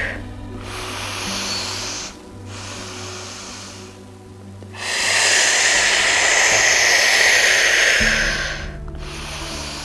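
A person breathing audibly through the nose in a yoga breathing exercise: a softer breath about a second in, then a long, forceful breath lasting about three seconds from the middle. Soft background music with sustained low notes plays underneath.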